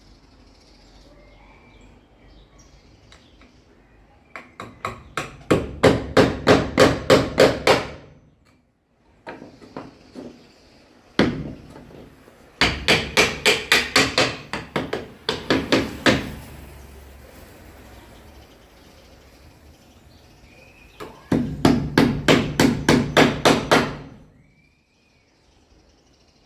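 Electric rotary hammer (martelete) hammering in three bursts of a few seconds each, with rapid, evenly spaced blows several times a second.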